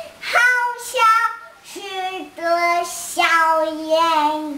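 A toddler girl singing a string of long, held notes with no clear words.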